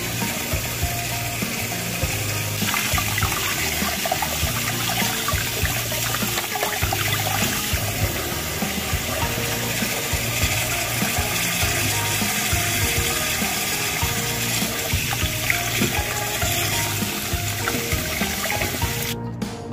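Tap water running into a sink and splashing over a vacuum cleaner's soft fleece roller brush as it is rinsed by hand; the water stops near the end. Background music plays underneath.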